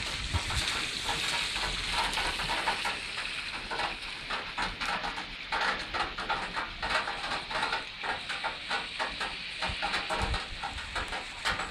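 Rain falling steadily: a hiss with many small ticks of drops.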